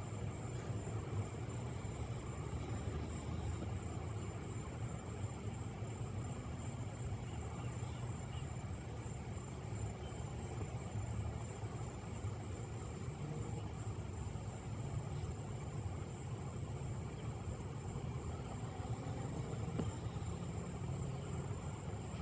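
Steady low background rumble with a thin, steady high-pitched whine above it, unchanging throughout.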